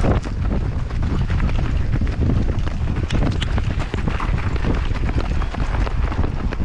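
Several people running in boots on dry dirt, footfalls and rattling gear in a quick uneven patter, with heavy wind buffeting the microphone.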